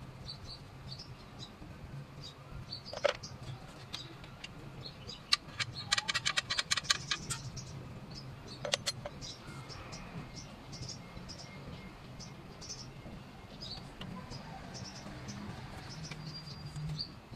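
Socket ratchet and metal tools clicking and clinking while the alternator's mounting bolts are undone, with a quick run of ratchet clicks in the middle. Birds chirp in the background.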